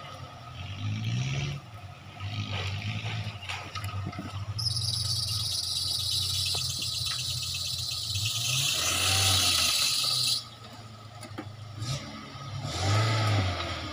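Suzuki Katana Jimny engine revving up and down as the 4x4 crawls over a rutted dirt trail. A loud, steady high hiss starts suddenly about four seconds in and cuts off about six seconds later.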